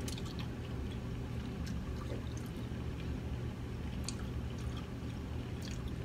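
A person drinking from a plastic bottle of juice: faint swallows and small clicks over a steady low hum.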